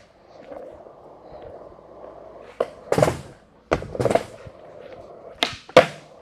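Skateboard wheels rolling on a smooth concrete floor with a steady rumble, broken several times by sharp clacks of the board's tail popping and the board landing, most of them in pairs about half a second apart.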